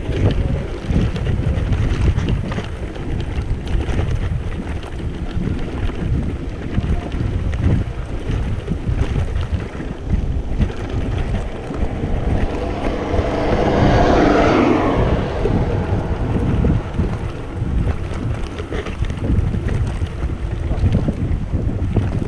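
Wind buffeting the microphone over a steady low rumble from the electric wheelchair bike attachment rolling across bumpy grass. The sound swells louder for a few seconds a little past the middle.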